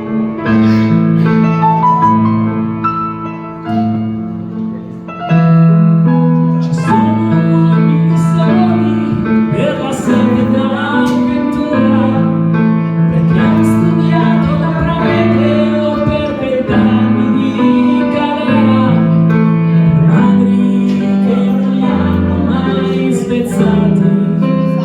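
Live piano and voice: sustained piano chords, with a singer's voice coming in over the piano about five seconds in and singing on.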